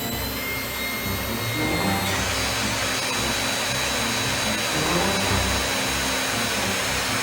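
Whine and hiss from the electric motors of an in-wheel-motor 1/5-scale RC car running steadily. The whine's tones shift about two seconds in.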